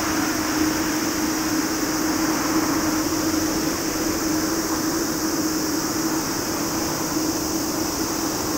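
Boeing 787-10's jet engines heard from the ground as the airliner climbs out after takeoff, a steady roar that holds level throughout.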